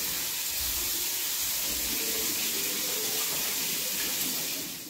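Kitchen sink tap running: a steady hiss of water that cuts off abruptly at the end.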